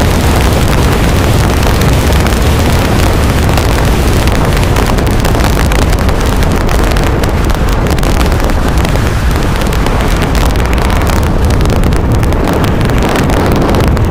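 Wind rushing and buffeting on the microphone of a camera riding on a moving dirt bike, with the motorcycle's engine and tyres running under it. The hiss thins out over the last few seconds as the bike slows.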